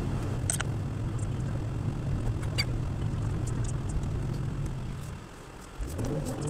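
Steady low road and engine rumble of a moving car, heard from a windshield dashcam inside the cabin, with a few light clicks. The rumble dips briefly about five seconds in, then returns.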